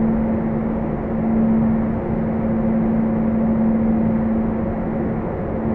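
Steady machine drone inside a rock tunnel: one held humming tone over an even rushing noise, without a break.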